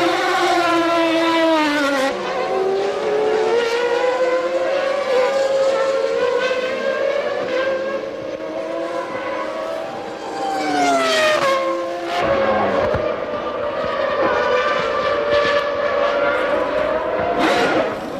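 1996 Formula One car engines running at high revs, their pitch falling and rising repeatedly with braking and gear changes through the lap. There is a sharp drop in pitch about twelve seconds in, then a long climb.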